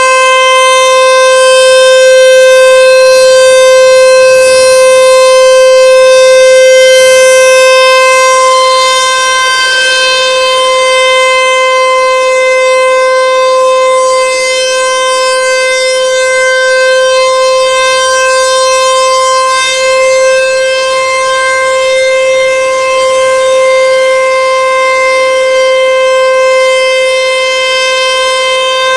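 American Signal Tempest 135 AC/DC electromechanical warning siren sounding a loud, single steady tone, the steady alert signal of the monthly outdoor siren test.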